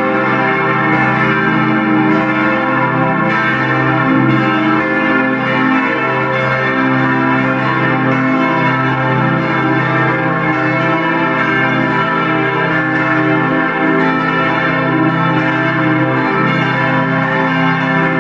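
Large church bells cast by Grassmayr ringing together: strikes follow one another every second or so and their long-ringing tones overlap into a continuous peal.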